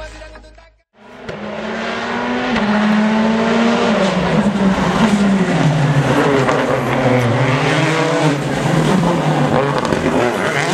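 Citroën C4 rally car's engine running hard through a corner, its pitch dropping and climbing again several times as the driver lifts off and gets back on the throttle. It comes in about a second in, after a short silent gap.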